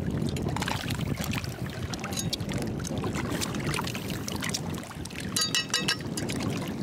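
Shallow seawater lapping over a bed of oyster shells, with scattered small clicks of shells being handled. About five seconds in there is a brief high-pitched sound.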